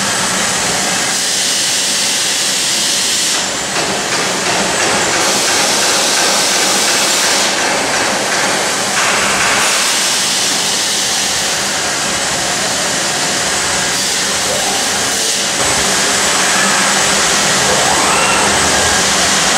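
Robotic weld-grinding head working along the weld seams of a sheet-metal cabinet: a loud, steady, hissing grind that shifts abruptly in tone several times.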